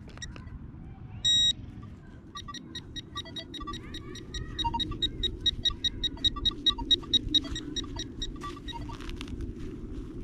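Metal-detecting pinpointer falsing: one short beep about a second in, then from about two seconds in a long run of quick, evenly repeated high beeps, several a second, which the detectorist finds maddening and later traces to the Nokta Makro Legend detector interfering with the pulse-induction pinpointer.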